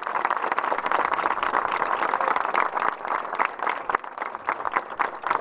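Crowd applauding: a dense round of clapping that thins into scattered separate claps in the last second or so.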